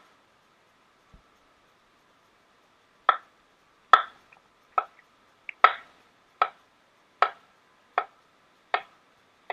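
Kitchen knife chopping zucchini on a cutting board. After about three seconds of quiet comes an even run of about nine sharp knife strikes, roughly one every 0.8 seconds.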